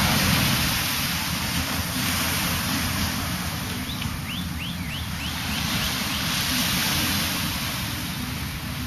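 Steady rush of wind buffeting the microphone outdoors, uneven and heaviest in the low end. About four seconds in there is a quick run of faint, high, falling chirps.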